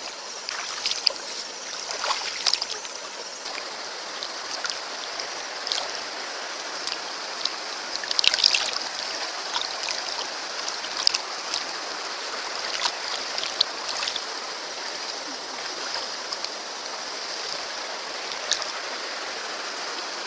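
Stream water running steadily, with small splashes and sharp watery clicks scattered throughout and a brief cluster of louder splashes about eight seconds in.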